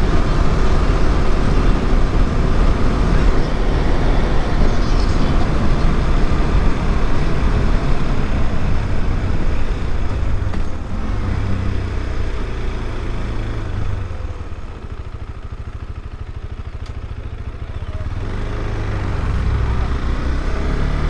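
KTM 390 Adventure's single-cylinder engine running on the move, with wind rushing over the helmet-cam microphone. The noise drops back for a few seconds past the middle, then builds again.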